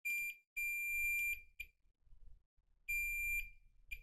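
Digital multimeter in diode-test mode beeping as its probes touch capacitors on a wireless charger's circuit board. It gives five high, steady beeps of uneven length, the longest close to a second. The beeper signals a near-zero reading across shorted parts.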